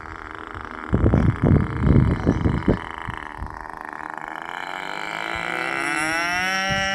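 Wind buffets the microphone in gusts for a couple of seconds. Then the Graupner Epic Victory RC model plane's motor and propeller rise into a drone whose pitch climbs and then falls as the plane makes a slow, low pass.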